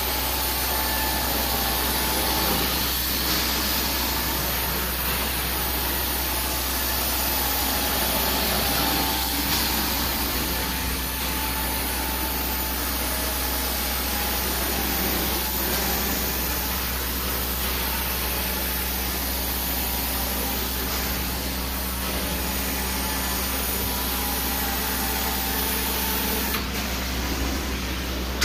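Carpet-cleaning extraction machine running steadily, its vacuum drawing through the hose while the powered cleaning head is worked over the carpet. A brighter hiss joins near the end.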